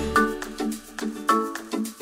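Background music: a light tune of short, sharply struck notes that fade quickly, a few each second, with no bass.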